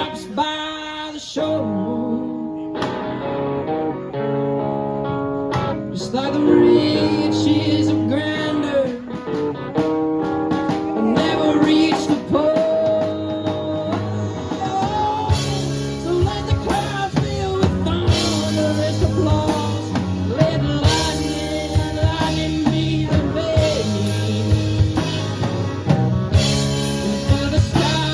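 Live band playing a slow blues-rock song: electric guitar and singing, with the drum kit and cymbals coming in fuller about halfway through.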